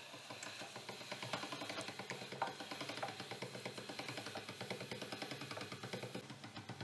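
Hand-cranked Marcato pasta machine rolling a sheet of dough, its rollers and gears giving a faint, fast, even clicking.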